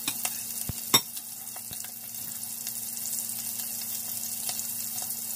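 Bacon sizzling in hot grease in a Ninja Foodi Possible Cooker Pro pan, a steady hiss. A sharp click about a second in and a few lighter clicks sound over it.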